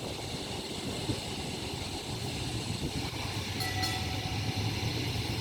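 Electric tram running along the rails, with a low steady motor hum that grows from about halfway through and a few faint high tones near the end.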